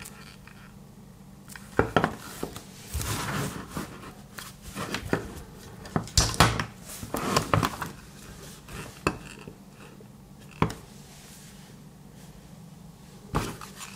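Hands pulling a plastic XT60 connector apart from an RC battery pack: sharp plastic clicks and knocks among rustling handling noise, busiest in the first half. After that come a few single knocks, the last near the end, as the meter and its leads are set down.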